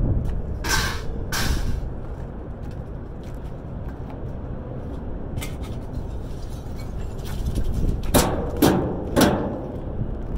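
Wind rumbling on the microphone, with short clanks and scrapes of scrap metal being handled: two about a second in, and three close together near the end.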